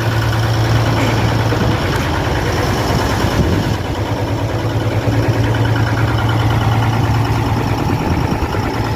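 Nissan PE6 straight-six diesel engine of a Tadano 25-ton crane idling steadily. It runs well now that a proper relief valve is fitted on the fuel return line in place of a plain banjo bolt, the fault that had caused its hard starting.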